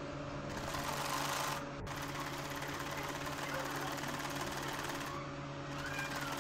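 Sewing machine running steadily, stitching a pintuck through thin cotton fabric.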